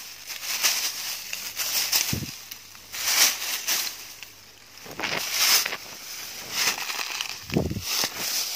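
Dry grass and fallen leaves rustling and crunching as someone moves through them on foot, in irregular swishes, with a couple of dull low thumps.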